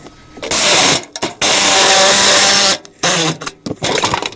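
Cordless power tool run in two bursts, a short one and then one of about a second and a half, while old camper floor is cut out. Knocks and rattles of wood debris follow near the end.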